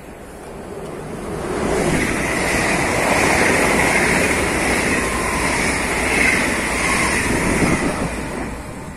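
A train passing along the station tracks: steady rolling rail noise that builds over the first two seconds, stays loud with a high wheel-on-rail ring, and eases off near the end.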